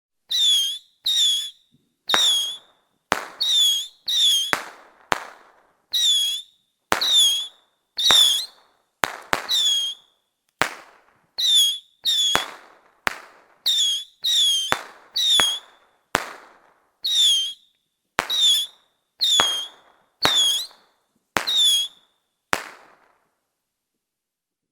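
Whistling firecrackers going off in an irregular rapid series, roughly one to two a second. Each is a sharp crack with a short high whistle and a brief decaying tail. The last one, about 23 seconds in, is weaker and has no whistle.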